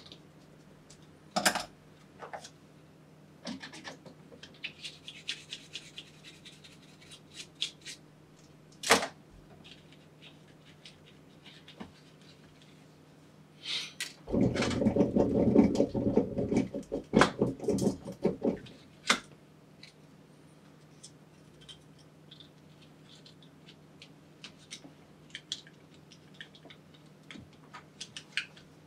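Small clicks, taps and scrapes of a Logitech G703 mouse's plastic shell and parts being handled and reassembled with a small screwdriver, with a louder stretch of handling noise about halfway through lasting about four seconds.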